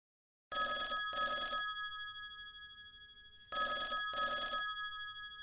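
Phone ringing with an old-style bell ringtone in the ring-ring double cadence: two double rings about three seconds apart, each fading slowly away before the next.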